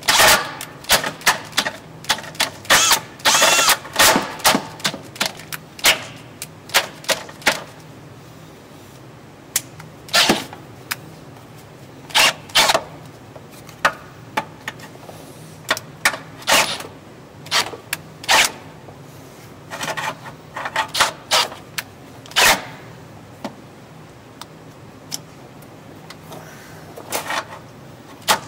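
Cordless drill working a hole in the steel vehicle frame. The bit grabs and chatters in the metal, giving irregular sharp metallic clicks and clatter. They come thick for the first several seconds, then come only now and then.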